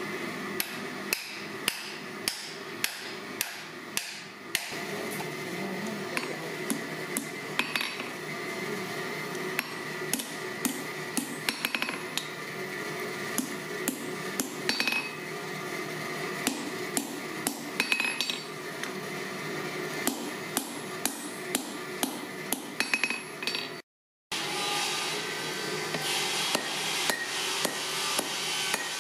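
Hand hammer striking red-hot steel: the split claw of a 16 oz claw hammer forged from forklift tine, being shaped in a vise and over the anvil horn. A steady run of ringing blows comes about two a second over a constant background hum, with a brief cut-out near the end.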